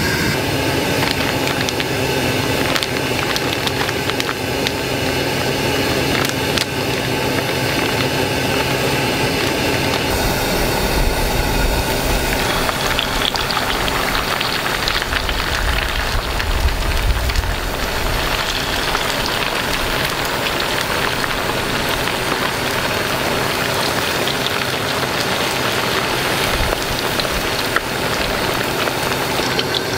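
Oil deep-frying in a rectangular aluminium mess tin over a gas camp stove: a dense sizzle with many small crackles, over the burner's steady hiss.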